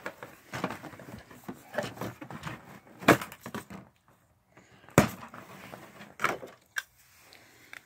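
Handling noise of a cardboard display board and plastic toys: a string of clicks, knocks and rubbing as a small plastic figure is pulled off the board, with two sharp knocks about three and five seconds in.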